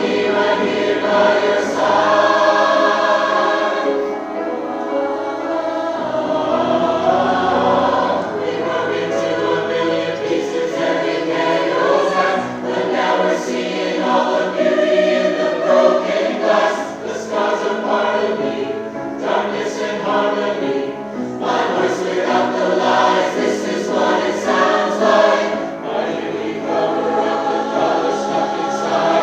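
Community choir singing a choral arrangement of a pop song, many voices together in held chords that shift through the phrases.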